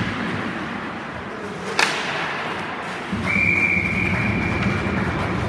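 A single sharp crack about two seconds in, then a referee's whistle blown in one long steady blast from about three seconds in, stopping play, over the hum of the rink.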